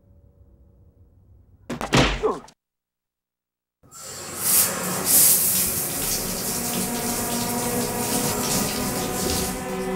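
A loud, sudden burst about two seconds in, cut off into dead silence; then a shower sprays steadily from about four seconds in, with held music tones coming in beneath the water.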